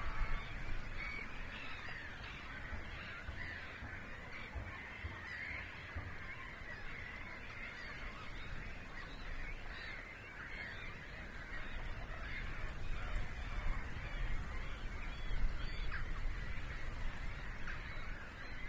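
A dense wetland bird chorus: many waterbirds calling at once, their calls overlapping without a break, over a low rumble.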